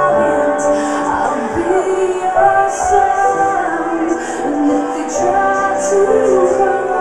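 Loud trance music from a DJ set playing over a club sound system: sustained synth chords with a female vocal line gliding over them.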